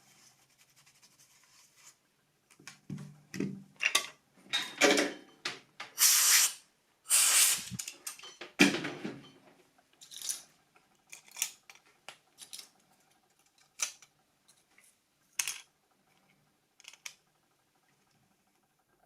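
Clicks, taps and a few longer scraping rubs from the small plastic parts of an old mobile phone being handled and fitted together. The sounds are densest in the first half, with the loudest rubs about six to nine seconds in, then thin out to scattered single clicks.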